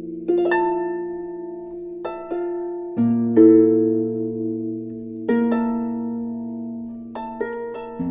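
Background music: slow, plucked harp notes ringing out and fading, struck in pairs every second or two over held low chords.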